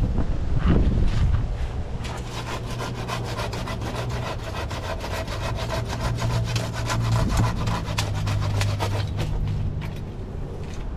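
Rapid, continuous scraping and rubbing, as of wood or branches, over a steady low engine hum.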